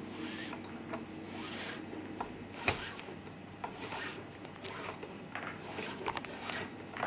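Nylon paracord being threaded through a metal carabiner and pulled along, rubbing against the hands with a soft, uneven rustle, with a few small sharp clicks, the loudest nearly three seconds in.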